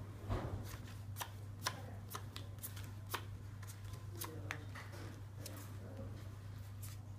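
Playing cards being handled and dealt onto a cloth-covered table: irregular light card clicks and snaps, over a steady low hum.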